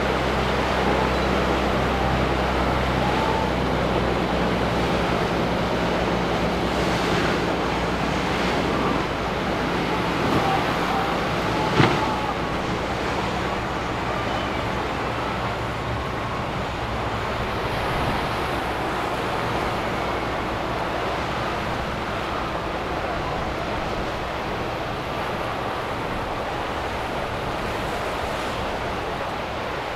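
Boat engines running over steady surf and wind noise on the microphone; the low engine hum fades after about nine seconds, and a single sharp knock comes about twelve seconds in.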